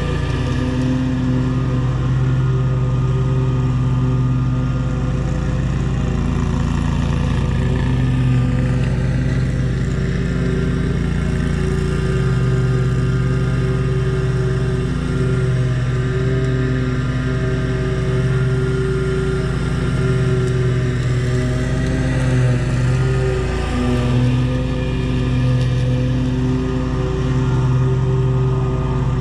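Small gasoline engine of lawn-care equipment running steadily at working speed, its pitch shifting slightly now and then.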